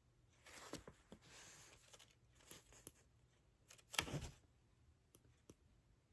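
Plastic packaging rustling and tearing as a pair of jewelry pliers is unwrapped, with a louder rustle and bump about four seconds in and two light clicks near the end.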